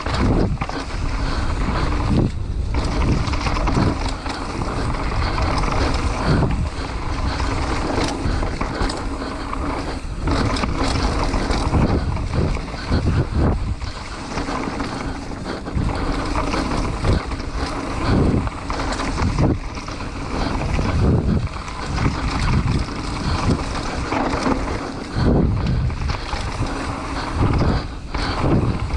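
Mountain bike riding down a dirt enduro trail: steady wind rush on the microphone, with frequent knocks and rattles from the bike over the rough ground.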